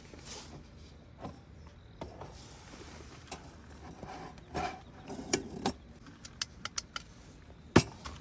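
Handling noise: a run of light clicks and knocks, denser in the second half, with one sharp click near the end.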